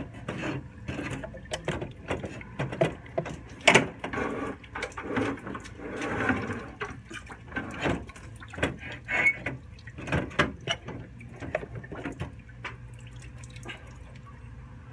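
Irregular knocks, clicks and scrapes of a removed BMW E46 radiator being handled and shifted about, settling down near the end.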